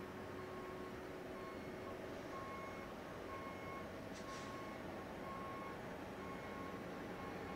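Concrete mixer truck's backup alarm beeping about once a second, faint, over a steady low engine hum.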